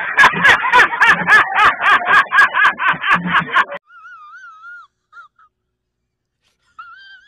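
A loud, pulsing vocal sound effect, about five pulses a second with a wavering pitch, that cuts off suddenly about four seconds in. A faint wavering whistle-like tone follows.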